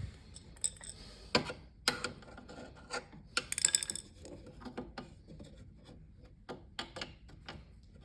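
Hand work on a refrigerator's roller wheel assembly, with irregular clicks, taps and scrapes of small metal parts being worked into place. A quick run of ringing metallic clinks comes about three and a half seconds in.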